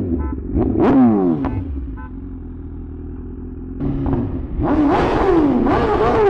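BMW S1000RR inline-four engine with a full titanium exhaust system, revved while standing. One quick rev about a second in drops back to idle, then from about halfway the throttle is blipped over and over, the engine pitch rising and falling roughly twice a second.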